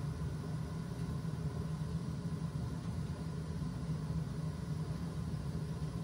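Steady low rumble of a Peerless Series 63 gas-fired steam boiler's burner firing while the system builds steam pressure, near 3 psi.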